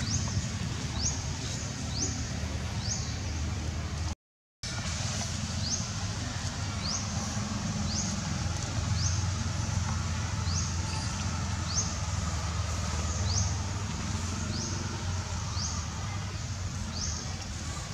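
Outdoor ambience: a short, high rising chirp repeats about once a second over a steady low rumble, with a brief dropout about four seconds in.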